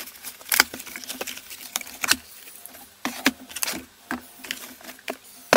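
A cardboard box being opened and tins of body filler lifted out of it: irregular cardboard rustles and scrapes with short knocks of the tins, about a dozen sharp sounds.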